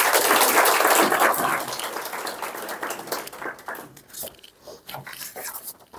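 Audience applause, loudest in the first second or two, then thinning to scattered claps that die away near the end.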